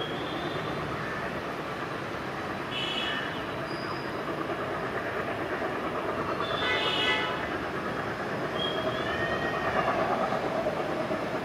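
WDM 3D ALCo diesel locomotive with its 16-cylinder ALCo 251 engine approaching in the distance, a steady rumble that grows a little louder towards the end. A short horn note sounds about seven seconds in, with a fainter one about three seconds in.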